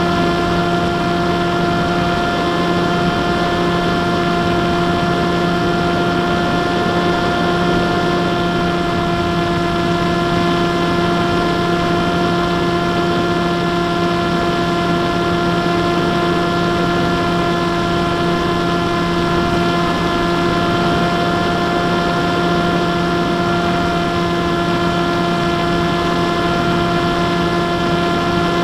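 Electric motor and propeller of an F27 RC plane running at a steady speed, picked up by the onboard camera: a constant whine that holds one pitch throughout, over a rush of airflow noise.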